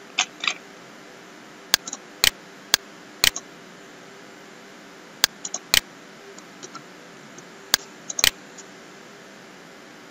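Computer mouse clicking: about a dozen sharp single clicks at uneven intervals, some in quick pairs, over a faint steady hum.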